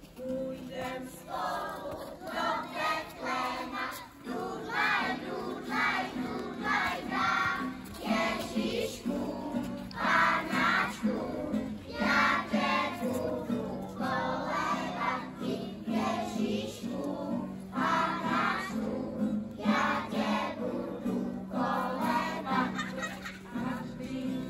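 A group of kindergarten children singing an Advent song together in unison, phrase after phrase, over a steady low accompaniment.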